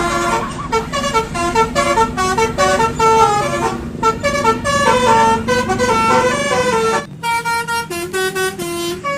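Basuri telolet multi-tone bus horn playing a quick melody of stepped notes, several a second. A steady low hum runs underneath and drops away about seven seconds in.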